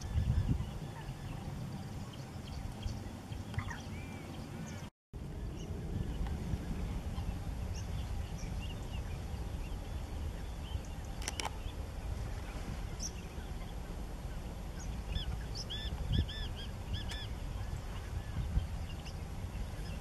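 Outdoor ambience: a steady low rumble with short chirping bird calls, a quick run of them near the end. The sound cuts out for a moment about five seconds in.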